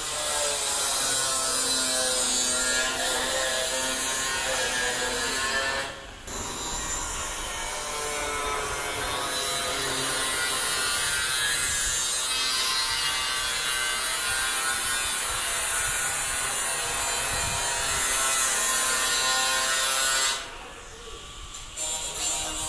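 A saw cutting through metal: a continuous grinding cut with a ringing, wavering squeal from the blade. It breaks off briefly about six seconds in and again for a moment near the end.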